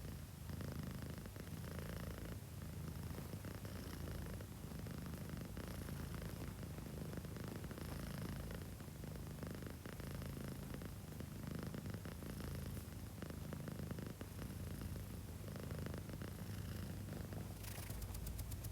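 A sleeping cat snoring: a low, rapid, fluttering rumble that swells and fades with its breathing.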